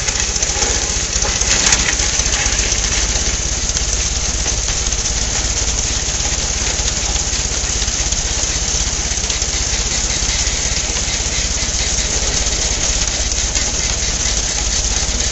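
Allis-Chalmers WD45 tractor engine running steadily while its mounted Roto bale loader picks up a round bale and carries it up the elevator chute.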